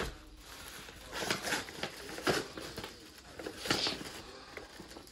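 Tissue paper and a metallic foil gift bag crinkling as the tissue is pulled out of the bag, in a few separate rustles.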